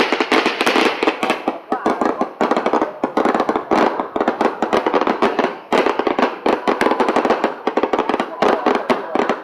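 Fireworks crackling and popping in a dense, rapid, unbroken string of sharp cracks.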